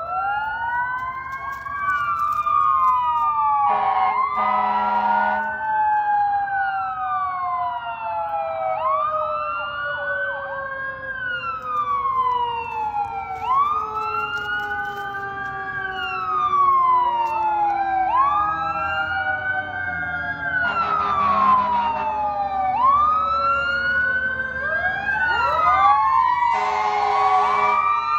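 Emergency vehicle sirens wailing, several at once, each rising and falling about every two seconds over a long, slowly falling tone. Short horn blasts sound three times: near the start, about two-thirds in, and near the end.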